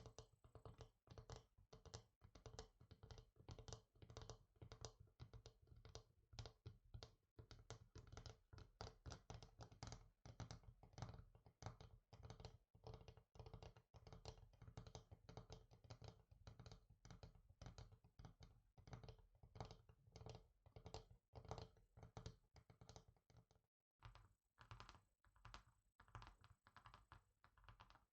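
Soft, quick fingertip tapping on a hard surface, several taps a second in an uneven rhythm, with a momentary break about 24 seconds in.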